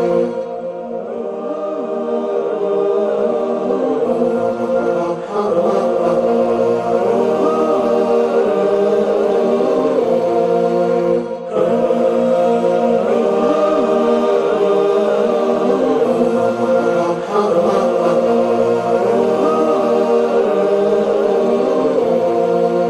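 Closing-credits theme: a melodic chant sung by several voices over a steady held note, with a brief break about eleven seconds in.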